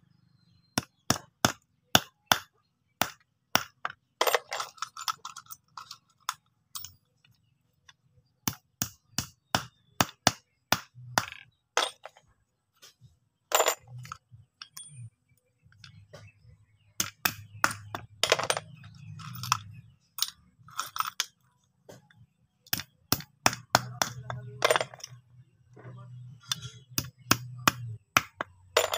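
Claw hammer tapping bent, used nails straight against a wooden block: runs of sharp metallic taps, about two a second, with short pauses between nails. The old nails are being straightened so they can be used again.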